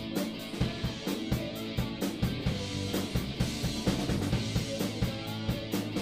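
Rock band playing live: two electric guitars, a bass guitar and a drum kit, with a steady beat of kick drum and cymbal strikes about four a second.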